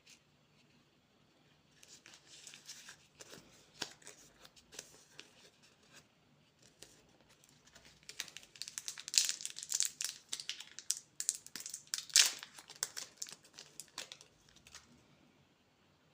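Candy wrapper being crinkled and torn open by hand: irregular crackling that starts a couple of seconds in, grows busiest and loudest in the second half, then stops shortly before the end.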